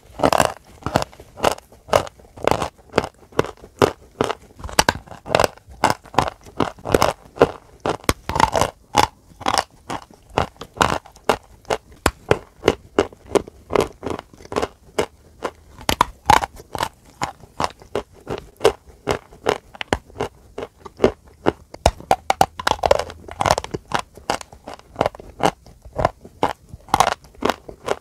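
Dry chalk being bitten and chewed: loud, sharp crunches, a few a second, as a block of chalk is crushed between the teeth.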